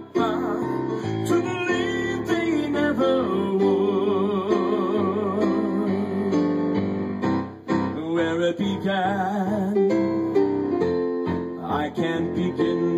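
A man singing with vibrato on long held notes while accompanying himself on piano.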